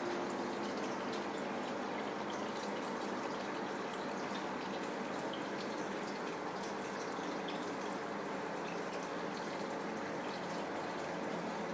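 Aquarium air stones bubbling steadily, air breaking at the water surface in a constant patter of small pops and drips, with a faint steady pump hum underneath.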